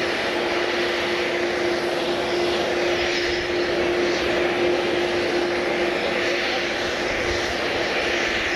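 Passenger aircraft engines running steadily, an even engine noise with a single steady tone beneath it and no rise or fall in level.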